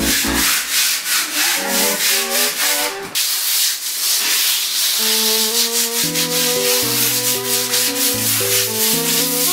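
Sanding block rubbed back and forth by hand over a painted wall in quick, even strokes, smoothing it before painting, over background music.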